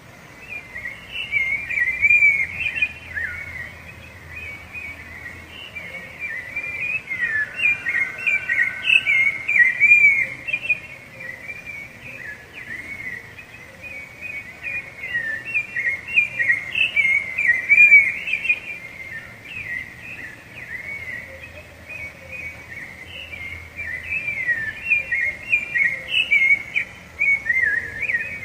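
Rufous-bellied thrush (sabiá-laranjeira) singing: a long, unbroken run of short, varied whistled phrases.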